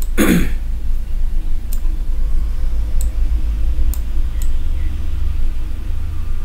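Four sharp computer-mouse clicks, spaced a second or so apart, over a steady low rumble.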